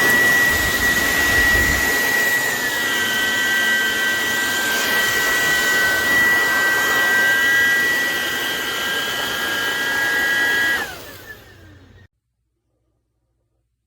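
Cordless stick vacuum (Hoover ONEPWR WindTunnel Emerge) running with a steady high-pitched motor whine that dips slightly in pitch a couple of seconds in. Near the end it is switched off and the motor whines down, then the sound cuts to silence.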